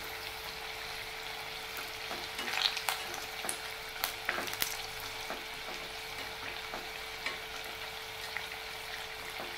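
Battered pumpkin pakoras deep-frying in hot oil in a kadhai, giving a steady crackling sizzle. A wire-mesh spider skimmer stirs them, with a few light clicks and scrapes against the pan a few seconds in. A faint steady hum runs underneath.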